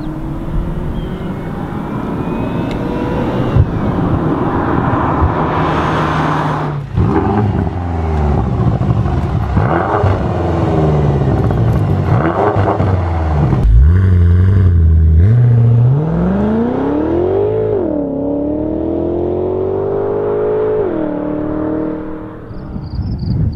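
BMW M6 coupe's twin-turbocharged V8 running hard: a pass at speed, then a series of revs rising and falling, then a long pull with the pitch climbing and dropping twice at upshifts before it eases off near the end.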